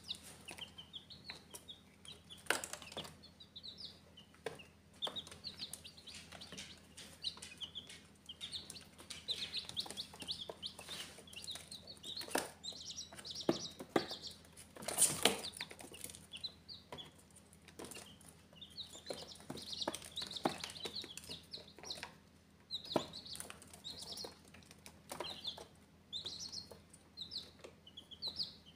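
Baby chicks peeping, many short high chirps overlapping throughout, mixed with scattered taps and scratches of the chicks moving about on cardboard and a louder scuffle about halfway through.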